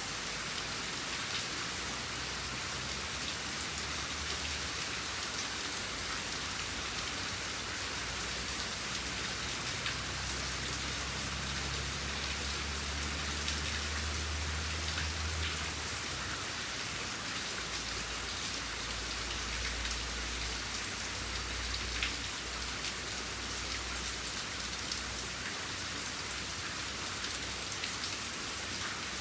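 Steady rain falling on surfaces, a continuous hiss dotted with small drop ticks, over a low rumble that swells and fades.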